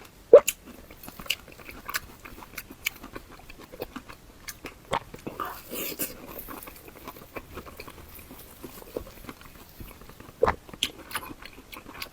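Close-miked eating sounds of a person chewing spicy numbing bullfrog (mala bullfrog): irregular wet smacks, bites and sharp clicks, the loudest about half a second in.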